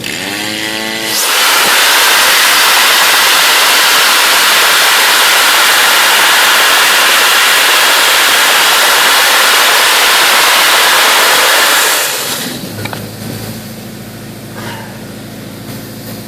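Dry ice blasting nozzle firing crushed ice in a loud, steady hiss for about ten seconds, stripping stain and dirt off a wood sample. A brief rising tone comes as the blast starts, and it cuts off sharply, leaving the steady hum of the blasting machine and compressor.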